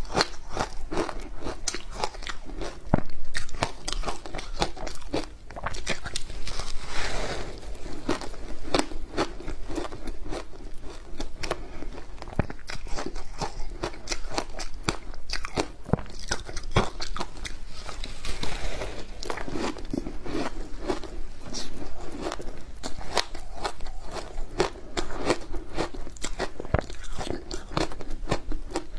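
Layered ice coated in matcha and milk powder being bitten and chewed: continuous crunching made of dense, rapid cracks, with louder bites now and then.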